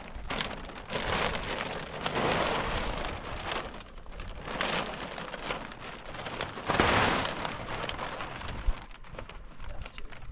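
Thin clear plastic sheeting rustling and crackling as it is pulled and spread over a heap of dry leaves, in uneven swells that come and go every second or two.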